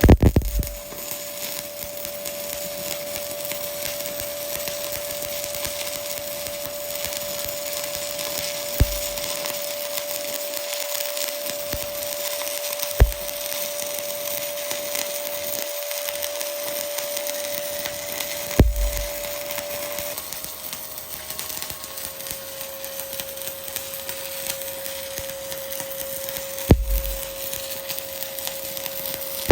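Stick (SMAW) welding arc crackling and hissing steadily while a vertical-position bead is run, with a few sharp pops along the way. A steady tone sits underneath and drops a little in pitch about two-thirds of the way through.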